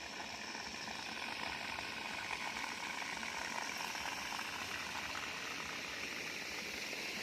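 Water from a man-made waterfall pouring and splashing steadily into its pool, a continuous rushing sound.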